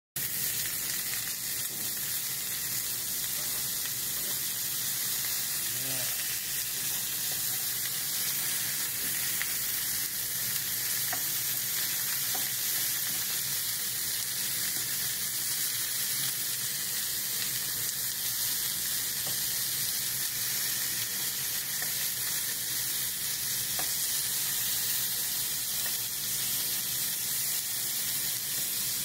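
Bone-in beef chunks searing in hot oil in a pan, a steady sizzle.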